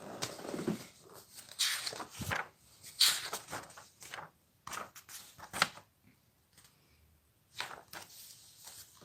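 Irregular rustles and soft knocks in short bursts, with a quieter stretch near the end.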